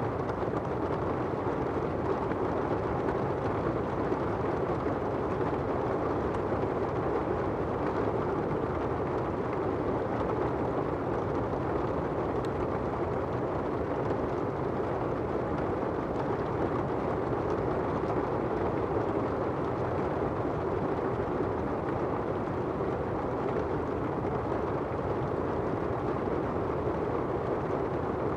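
Steady rain falling on an umbrella and on asphalt, an even hiss with no breaks.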